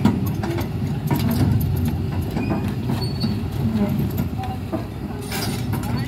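Excavator-mounted pile-driving hammer driving a steel pile from a barge, with the excavator's diesel engine running: a dense, steady low rumble broken by scattered irregular knocks.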